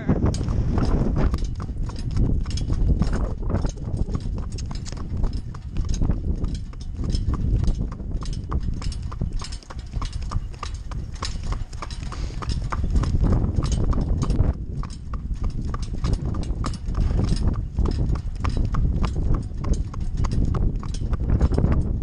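A mare's hooves clip-clopping steadily on an asphalt road as she pulls a cart, with wind rumbling on the microphone.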